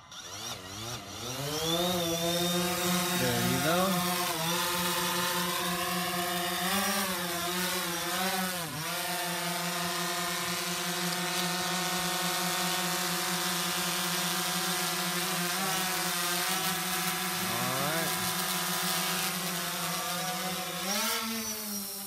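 DJI Phantom 4 quadcopter's four propeller motors spinning up for takeoff, the pitch rising over the first two seconds. It then holds a steady, loud whirring hum, its pitch swelling and dipping several times as the drone climbs and is steered.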